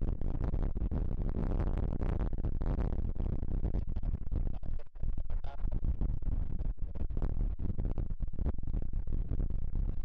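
Strong storm wind buffeting the microphone: a heavy, noisy rumble with many brief dropouts.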